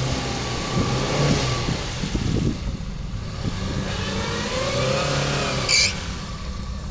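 Off-road 4x4's engine revving up and down under load as it drives through a forest puddle. A few knocks come early on, and a brief high squeal sounds about six seconds in.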